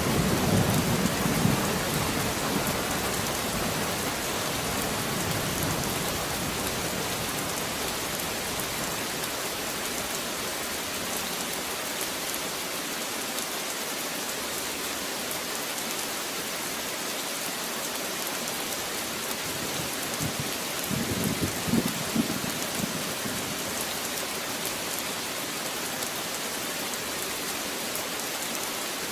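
Steady rain falling, with a low thunder rumble fading away over the first couple of seconds and another brief low rumble of thunder about twenty-one seconds in.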